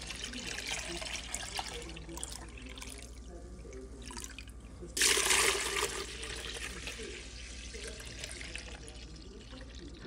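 Thick carrot juice pouring from one plastic jug into another, splashing into the juice already in the jug. The pour gets louder for about a second halfway through.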